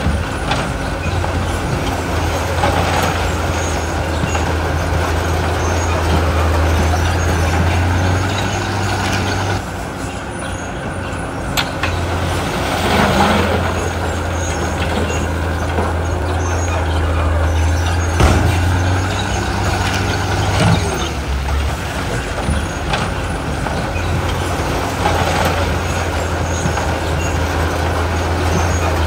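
Heavy diesel earthmoving machinery running steadily, a deep engine drone that rises and falls a little, with a few sharp knocks.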